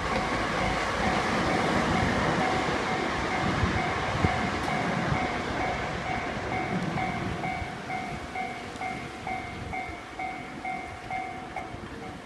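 Double-headed JR West DD51 diesel-hydraulic locomotives hauling a KiHa 120 railcar past a level crossing: engine rumble and wheel noise, loudest in the first few seconds, then easing off. Over it the crossing's warning bell rings steadily, a rapid two-tone ding at about two to three strikes a second.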